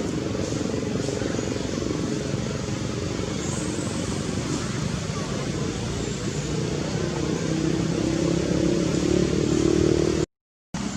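A motor vehicle engine running steadily, growing louder toward the end, then cut off abruptly for a moment near the end.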